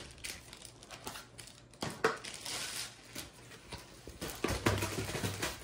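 Packaging crinkling and rustling in irregular bursts as a diamond-painting canvas is pulled open and unwrapped.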